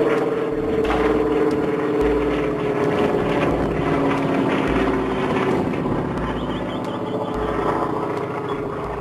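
Single-engine propeller aircraft flying overhead, its engine running with a steady drone whose pitch slides slowly down as it passes, easing off a little near the end.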